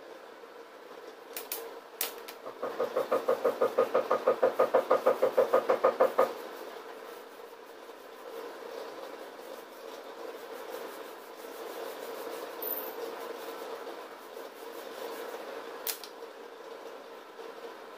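Liquid glugging out of a tilted plastic bottle, about seven quick glugs a second for three or four seconds, cutting off abruptly. A fainter scrubbing of a brush over a corrugated surface follows.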